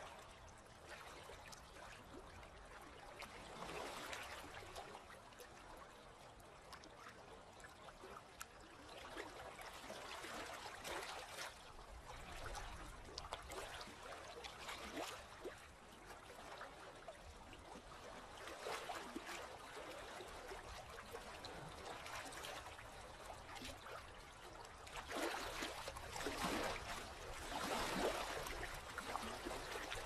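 Calm sea water lapping and trickling at the surface, swelling every few seconds with small splashes and drips, the biggest swells near the end.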